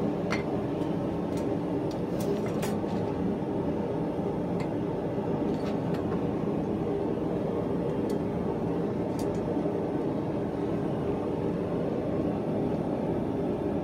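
Forge running with a steady rushing noise, with a few faint light clicks over it.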